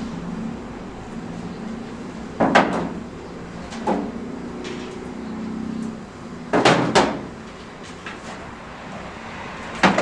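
A few hard clunks and knocks, a few seconds apart, as packets and containers are set down and moved around on the shelves of a kitchen cupboard, over a low steady hum.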